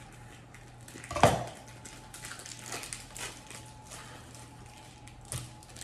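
Plastic packaging of a raw pork shoulder being slit and peeled open, with faint crinkling and rustling. About a second in, a single sharp knock as the knife is set down on the cutting board.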